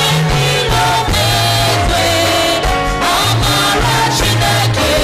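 Live church worship music: singing over a band, with a moving bass line and a steady beat.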